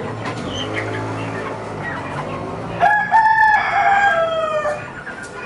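A rooster crows once, a loud call of about two seconds starting near the middle that falls in pitch at its end, over the steady clucking of a crowded pen of chickens.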